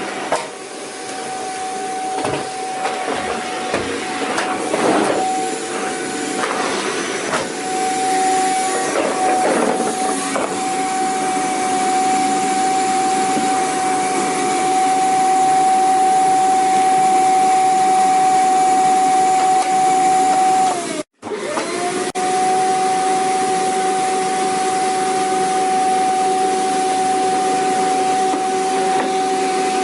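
Vacuum cleaner running with a steady high whine over a noisy rush, uneven through the first ten seconds and then steady. About two-thirds of the way through, the whine dips and cuts out for a split second, then comes straight back.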